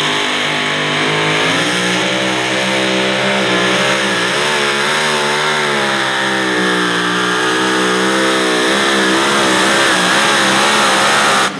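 A competition pulling vehicle's engine running flat out under load during a pull, its pitch wavering up and down; it cuts off abruptly near the end.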